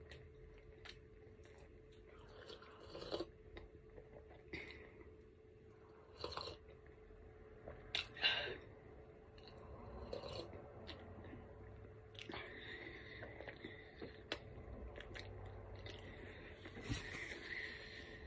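Close-up mouth sounds of a person eating and drinking: sips and swallows from a metal tumbler, with scattered soft chewing clicks and lip smacks. A faint steady hum runs underneath.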